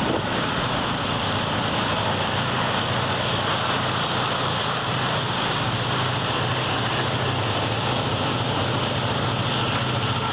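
Diesel locomotive approaching at low speed, its low engine hum becoming clearer in the second half, under steady wind noise on the microphone.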